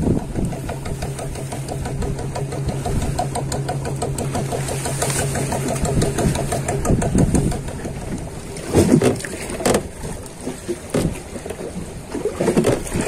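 A motor engine running steadily with an even beat, fading out about seven seconds in. A few louder bumps and a sharp knock follow.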